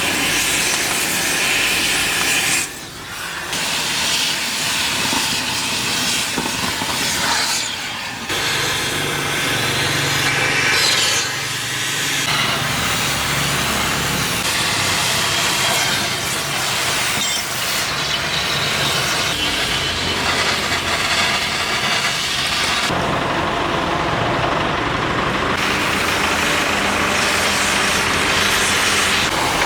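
Loud, steady hissing machinery noise with a low hum underneath through the middle stretch, dipping briefly a few times.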